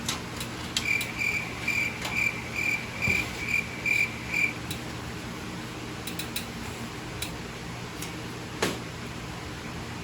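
A run of about nine short, high chirps, evenly spaced at roughly two a second, in the first half. After that come scattered plastic clicks and one sharper snap near the end as the PC case's front cover is worked loose.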